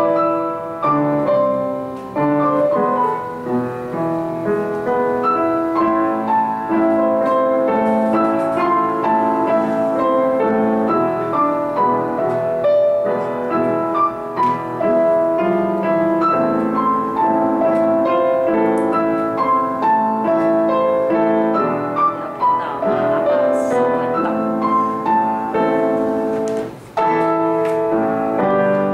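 Piano duet, two players at the keyboard: a singing melody in the upper range over a darker, flowing accompaniment, played continuously with a brief drop in loudness near the end.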